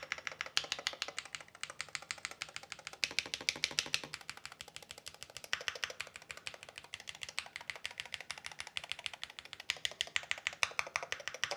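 Fast, continuous typing on an AKKO MOD68 8K Hall-effect magnetic-switch keyboard with PBT keycaps in a CNC-milled aluminium gasket-mount case: a dense, rapid run of keystroke clicks.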